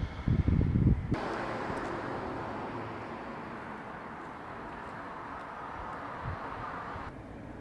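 Outdoor street ambience: low, irregular rumbling for about the first second, then a steady hiss that fades slowly.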